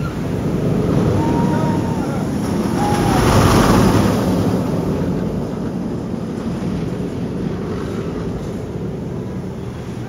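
Steel giga roller coaster train rushing along its track, a rising roar that peaks about three and a half seconds in and then slowly fades as the train moves away.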